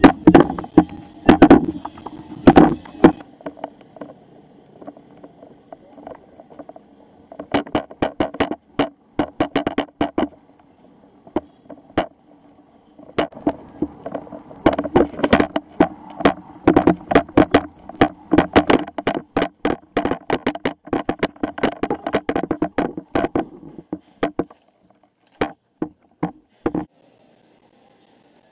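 Rattling and knocking from a moving bicycle with a handlebar-mounted camera, jolting over the road in dense irregular runs of sharp clicks over a low hum. The clicks thin out and stop near the end as the bike comes to a halt.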